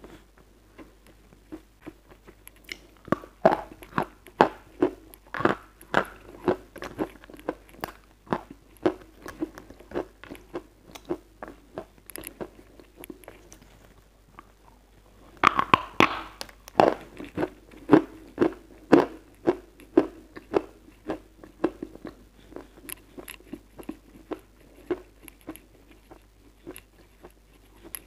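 Close-miked chewing of lumps of edible chalk, with sharp crunches about twice a second. A little past halfway a fresh bite gives the loudest crunch, and steady chewing follows, growing fainter toward the end.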